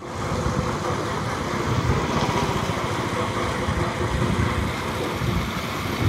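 River water rushing and churning in a foaming, turbulent stretch: a steady, dense rush that starts abruptly.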